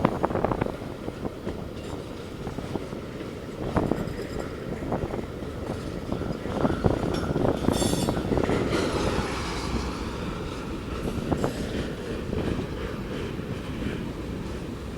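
Train cars rolling past, with a steady rumble and irregular clicks and clacks from the wheels on the rails, and a brief high squeal about eight seconds in.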